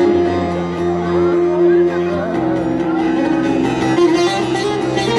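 A bağlama (long-necked Turkish saz) being plucked along with an electronic keyboard holding sustained chords, the chord changing about halfway through.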